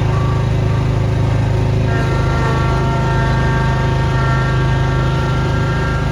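Snowblower engine running steadily. About two seconds in, a higher whine joins the engine note and holds.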